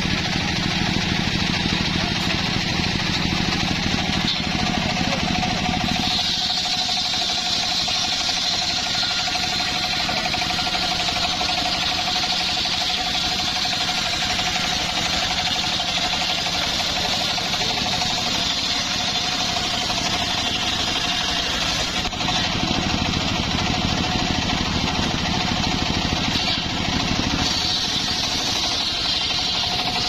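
Homemade circular-saw sawmill (gergaji serkel) ripping a log lengthwise: the big blade cutting steadily through the wood over the drive's running note. The deeper part of the machine sound drops away about six seconds in and comes back near the end.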